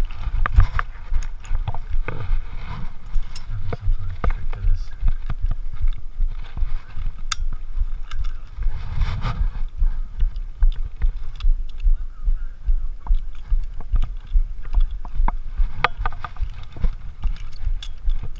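Low rumbling buffeting and rubbing noise on a body-worn GoPro's microphone, with scattered sharp clicks and scrapes.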